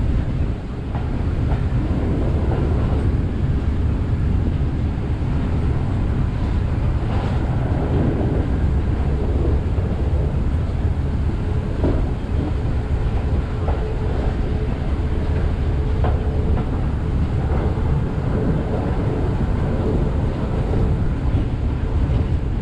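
Railway carriage rolling along the track: a steady low rumble of wheels on rail, with a few scattered clicks.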